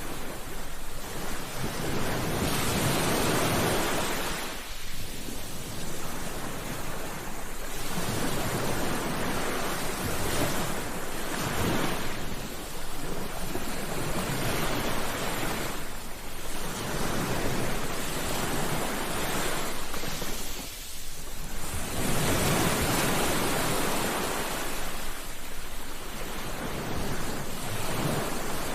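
Ocean waves breaking on a beach, the surf rising and falling in swells every few seconds.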